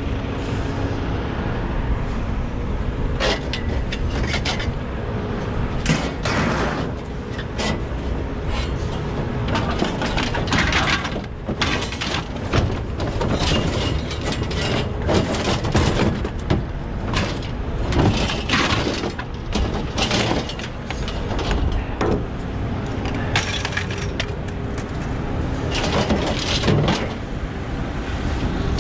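Scrap metal being pulled from a truck bed and thrown onto a pile: irregular clanks, crashes and clatters, some sharp and loud, over a steady low rumble.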